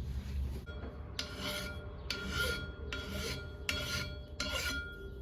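Lathe facing an 18-inch clutch plate with a brazed carbide tool. About every 0.8 s, five times in all, there is a rasping scrape with a faint ring, once per turn of the plate, as the tool passes over a spot damaged when the plate came out of the machine. A steady low machine hum runs underneath.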